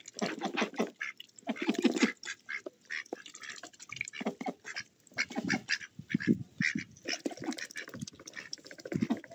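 Domestic ducks quacking in repeated short bursts of rapid calls.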